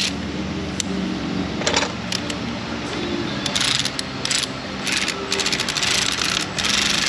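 A ratchet on a spark plug socket clicking in quick runs as the plug is run down its threads in the cylinder head. The clicking grows denser in the second half, over a steady low hum.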